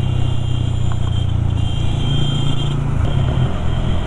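Sport motorcycle with a loud aftermarket exhaust cruising at steady throttle in city traffic, the engine running with an even, unchanging note.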